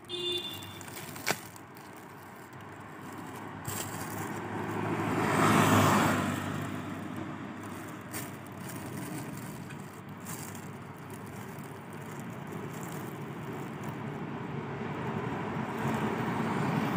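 A road vehicle passing by, swelling to its loudest about six seconds in and then fading, over steady outdoor noise that builds again near the end. There are a few sharp clicks near the start.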